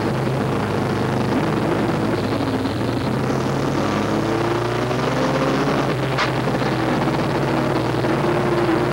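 Race truck's engine running hard under load, heard from inside the cab, its pitch falling and rising through the laps. There is a short sharp click about six seconds in.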